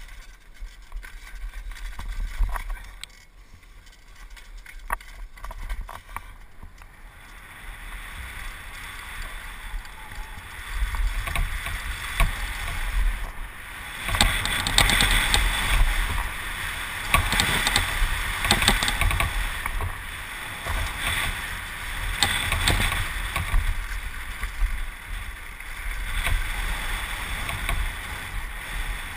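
Downhill mountain bike at speed on a dirt trail, heard from a helmet camera: wind rush on the microphone and tyre noise, with the bike clattering and rattling over bumps. It gets louder and rougher about halfway through.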